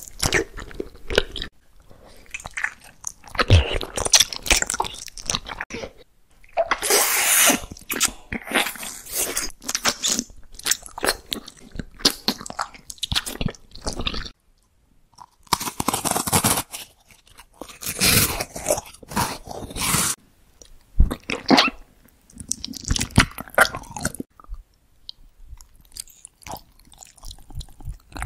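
Close-miked eating: bites and crisp, crunchy chewing in short irregular bouts, with a few brief pauses.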